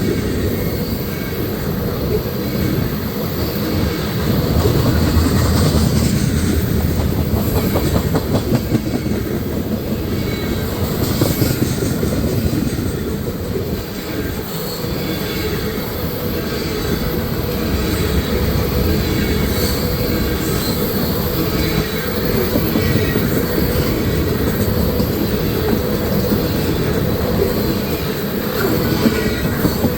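Loaded ethanol tank cars of a long freight train rolling past close by: steady noise of steel wheels running on the rails, with a few sharp clicks from the rail joints.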